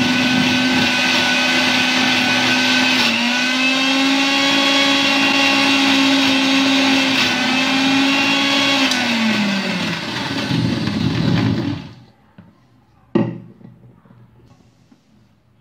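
Electric mixer grinder running with a steady whine as it grinds soaked urad dal with water into fine idli-dosa batter. About nine seconds in the motor slows, falling in pitch, and it stops about twelve seconds in. A single sharp knock follows a second later.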